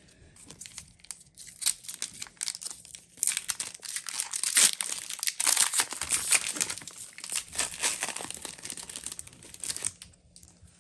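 Foil booster-pack wrapper crinkling and tearing as a Pokémon card pack is opened, in a run of dense crackles that is loudest in the middle and stops shortly before the end.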